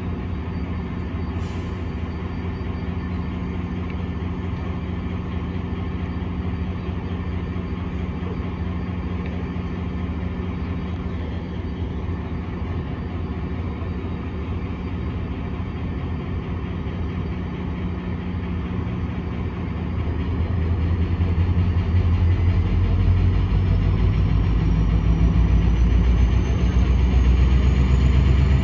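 Diesel locomotive of a VRE commuter train running as it rolls slowly toward the platform: a steady low engine drone that grows louder over the last several seconds as it draws near.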